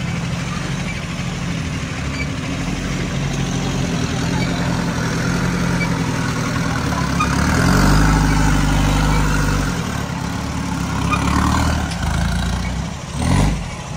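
Off-road 4x4's engine working under load on a steep climb. It rises in pitch and grows louder about eight seconds in, then eases, with a short rev near the end.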